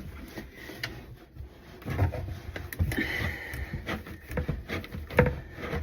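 Scattered clicks, knocks and rubbing of hands and tools on a plastic sink drain trap as a stuck slip nut is worked at.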